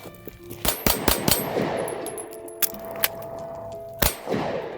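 Pistol fire during a timed string: four quick shots, a pause for a magazine reload, then shooting resumes about four seconds in.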